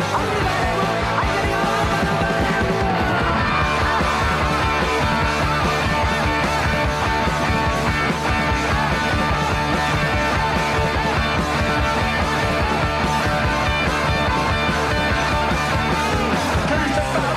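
Punk rock recording playing loud and dense: distorted electric guitars, bass and driving drums.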